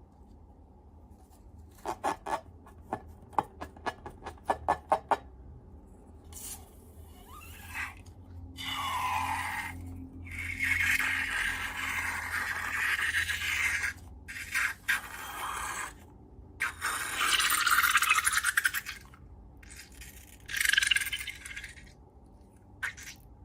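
Slime and rubber balloons being handled: a quick run of sharp clicks, then several bursts of scraping and rubbing noise lasting a second or two each.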